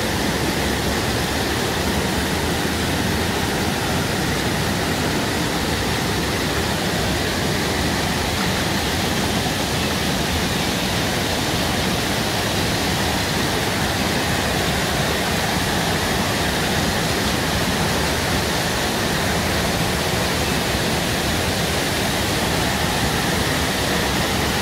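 Water showering and splashing steadily from the sprays and fountains of a children's water-play structure into its pool, an even rushing that does not change.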